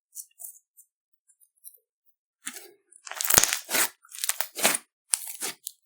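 Glossy slime being worked by hand. A few faint clicks come first, then from about halfway a run of sticky squishing and stretching sounds in several bursts, loudest a little past the middle.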